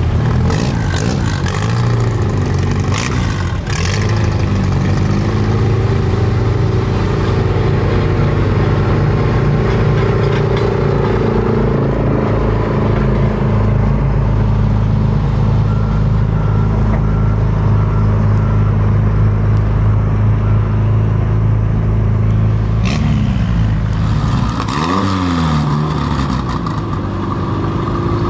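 Antique farm tractor's engine running hard under load as it drags a weight-transfer pulling sled, a steady drone with some clattering in the first few seconds. About 24 seconds in, the engine speed drops and then climbs again.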